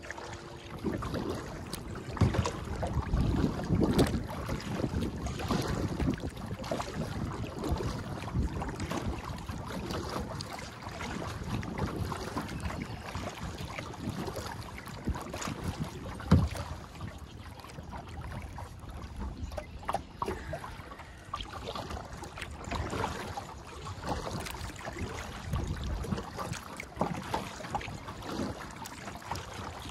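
Water splashing and lapping around a plastic kayak as it is paddled along, with irregular louder splashes from the paddle strokes.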